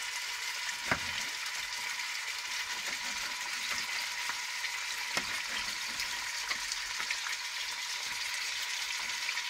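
Pieces of pork tenderloin frying in oil in a stainless pot: a steady sizzle with fine crackles. A few sharp knife taps on a plastic cutting board stand out, the clearest about a second in and just after five seconds in.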